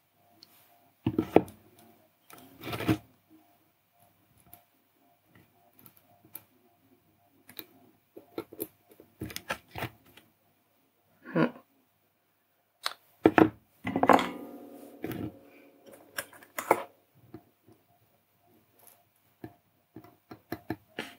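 Intermittent clicks, taps and knocks of a small circuit board, its wires and a soldering iron being handled on a cork mat, with a longer, louder clatter with some ringing about 14 seconds in.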